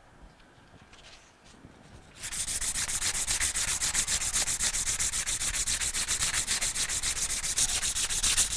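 Emery cloth strip pulled rapidly back and forth around a steel electric-motor shaft, a fast, even rasping of about seven strokes a second that starts about two seconds in. The shaft is being buffed clean of old Loctite before a new pump shaft sleeve goes on.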